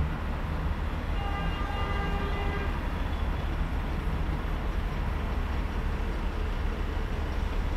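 Paris Métro Line 6 rubber-tyred train running on the viaduct overhead: a steady low rumble, joined from about one second in until nearly three seconds in by a steady whine of several pitches at once.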